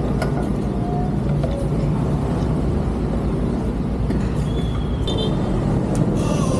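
Steady low rumble of motor vehicles: an engine running amid road traffic, with the sound changing about six seconds in.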